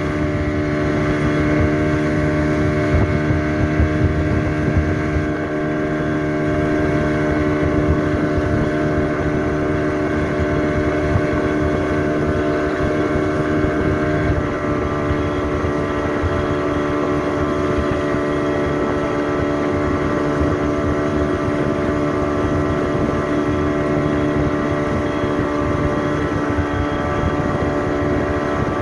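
Towing speedboat's engine running steadily at cruising speed, with wash and wind; the engine note shifts slightly about halfway through.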